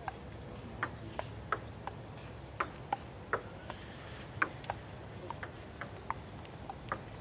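Celluloid-style table-tennis balls clicking off bats and tabletops in two rallies played at once, a quick irregular string of sharp ticks.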